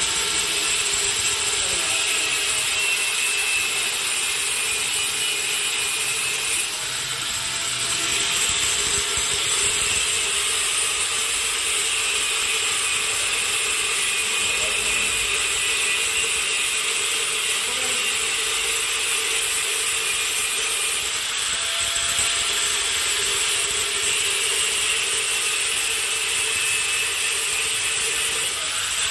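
Power tool cutting steadily through the rotavator's PTO drive shaft to shorten it, a continuous grinding-cutting noise with a brief dip about seven seconds in.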